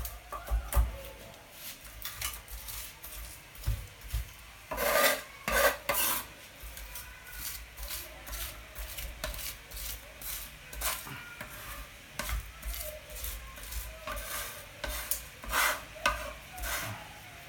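Cleaver knocking and scraping on a wooden chopping board while mincing garlic: irregular taps of the blade on the wood, with the minced garlic scraped and rubbed along the board. A few louder chops come about five seconds in and again near the end.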